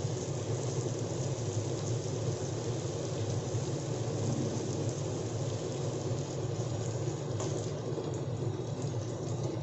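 Salted dry fish frying in oil in a kadai on a low flame: a steady sizzle over a constant low hum.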